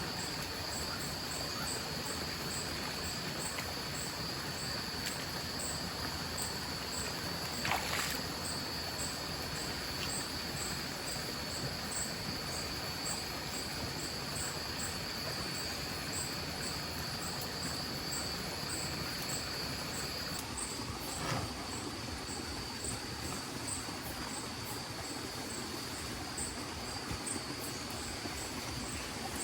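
Night chorus of tropical rainforest insects: a steady high-pitched trill with a regular high chirping over it, above the steady rush of a mountain stream. A brief sharp sound about eight seconds in and a click about twenty-one seconds in.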